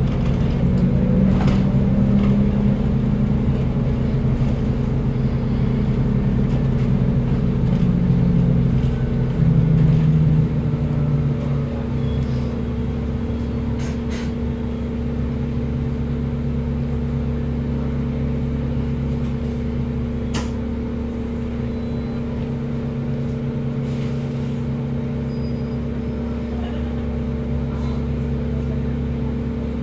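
Inside a New Routemaster hybrid diesel-electric London bus: the drivetrain gives a steady low hum. For about the first ten seconds it is louder, with tones that shift in pitch, and then it settles to an even drone. A few faint clicks and rattles from the cabin come through.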